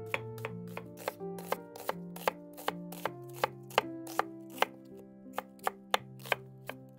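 A chef's knife slicing an onion on a wooden cutting board: evenly spaced knife strikes on the board, about two to three a second, over soft background music.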